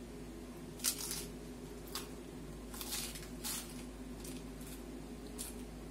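Crisp crunching of a shrimp-topped corn tostada being bitten and chewed: a sharp crunch about a second in, then a string of smaller crunches, over a steady low hum.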